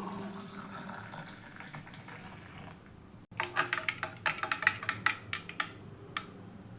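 Milk being poured into a vessel over turmeric and jaggery powder, a steady pouring sound that tapers off. After a break about three seconds in, a quick run of sharp clinks and taps follows.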